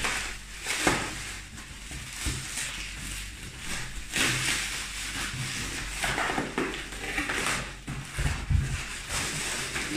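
Clear plastic wrap being pulled, torn and crumpled off a cardboard box by hand: irregular crinkling and rustling in uneven bursts.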